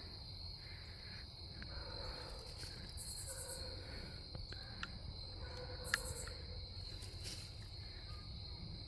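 Steady high-pitched insect chorus in woods at dusk, with a few light clicks and rustles about halfway through.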